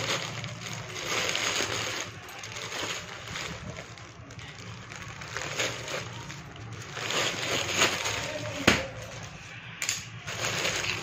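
Plastic courier mailer and polythene packaging crinkling and rustling in uneven bursts as it is cut and pulled open by hand, with a sharp click about nine seconds in.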